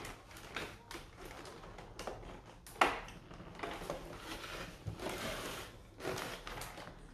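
Plastic packaging crinkling and rustling in irregular bursts as it is handled and peeled off a boxed statue, with one sharp snap about three seconds in that is the loudest sound.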